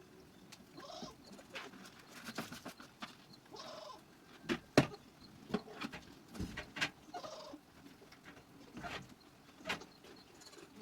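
Barn clatter of scattered knocks and bumps, the loudest about five seconds in, with three short bleats from dairy goats.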